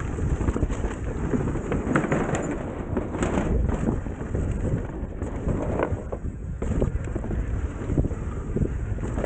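Mountain bike riding fast down a dirt trail: wind buffeting the camera microphone and a steady rumble of tyres on dirt, broken by frequent sharp knocks and rattles as the bike hits bumps.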